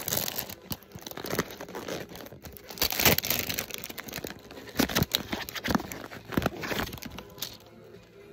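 Clear plastic shrink wrap crinkling and tearing as it is peeled off a cardboard mystery toy box, in irregular rustles with a few louder crackles, quieter near the end.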